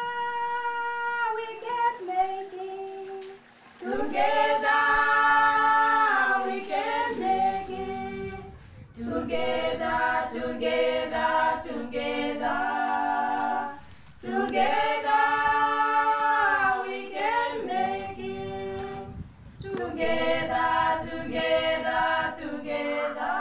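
An a cappella choir sings several voices in harmony. The notes are held in phrases of a few seconds, with short breaks between them.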